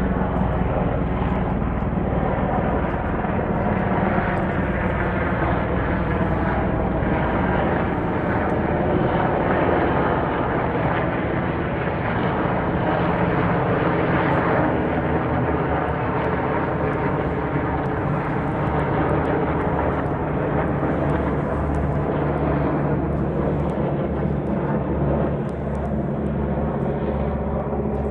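Steady mechanical drone of a running engine or motor, with a thick hum of many tones that holds throughout and eases slightly near the end.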